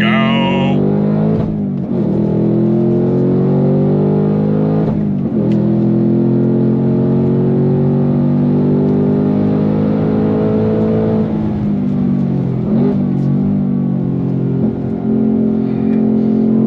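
The 2024 Ford Mustang Dark Horse's 5.0-litre V8 pulls under full throttle, its note climbing steadily. The pitch drops back sharply about 2, 5 and 13 seconds in as the manual gearbox shifts up.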